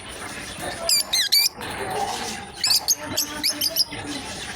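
Lovebirds chirping in shrill, squeaky, high-pitched calls. There is a quick run of sweeping chirps about a second in and another cluster of chirps around three seconds in.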